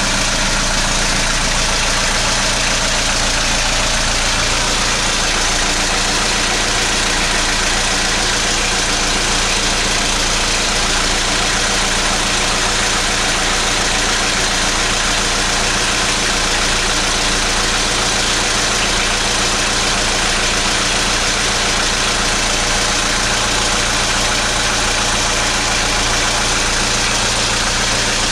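Boat's diesel engine running steadily, with a low hum under a loud, even hiss.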